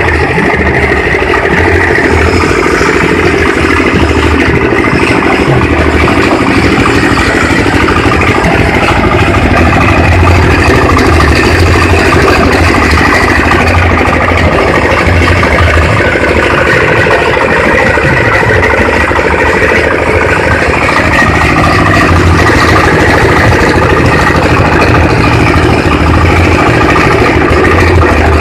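Engine-driven livestock feed chopper running steadily, a loud unbroken engine drone.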